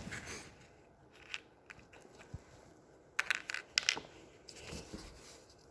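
Small hammer tapping a nail into a thin wooden toolbox-kit board: a few light, irregular taps, then a quick cluster of louder strikes a little past halfway.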